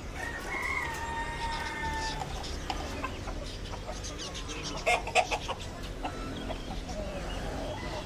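A caged rooster crowing, ending in one long drawn-out note, followed about five seconds in by a few short, loud clucking calls from the caged fowl.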